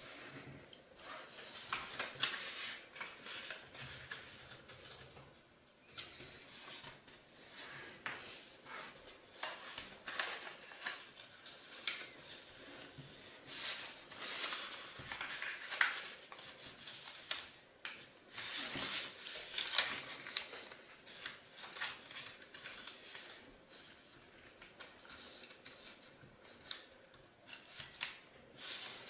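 A sheet of origami paper being folded and creased by hand: irregular rustling and crinkling, with sharper swipes as fingers press along the folds.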